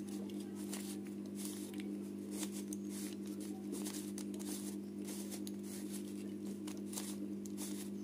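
Plastic 3x3 Rubik's Cube being turned by hand: irregular clicking and rattling of the layers as a corner-insertion sequence is repeated to solve the first layer. A steady low hum runs underneath.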